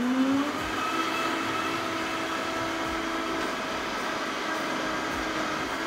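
Vitamix blender motor switched on, rising in pitch as it spins up, then running at a steady whine while it purees a thick onion, tomato and spice mixture.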